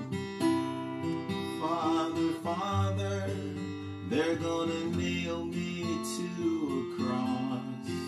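Acoustic guitar strummed in a steady rhythm, with a man singing over it in phrases.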